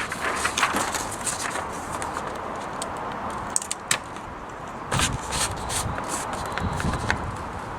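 Imperial 55 typewriter's platen being turned by hand: scattered clicks of the platen ratchet stepping the paper into set positions, over a scraping, rubbing noise from the mechanism, with a few duller knocks past the middle.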